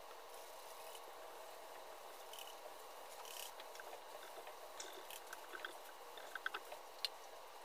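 Faint rubbing of a microfiber towel wiped across a car's painted hood, spreading a spray-on ceramic coating, over a steady faint hum. A few light ticks come near the end.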